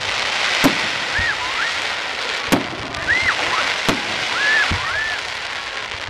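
Fireworks display: four sharp bangs of bursting shells over a steady crackling hiss.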